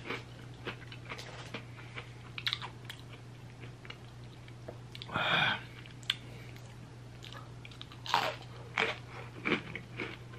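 Chewing and crunching of a Golden Oreo vanilla sandwich cookie close to the microphone: scattered crisp crunches that come thicker near the end, with one longer noisy sound about five seconds in. A steady low hum runs underneath.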